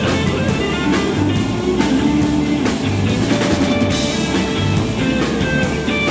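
Background rock music with electric guitar and drums and a steady beat.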